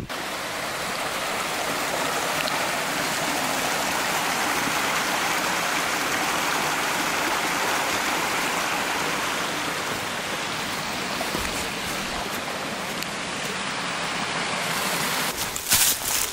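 Steady rushing of a mountain stream. Footsteps on the trail begin near the end.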